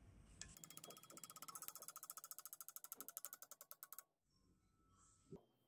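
A rapid, even run of mechanical clicks like a ratchet, more than ten a second, starting about half a second in and stopping abruptly about four seconds in, followed by a faint knock near the end.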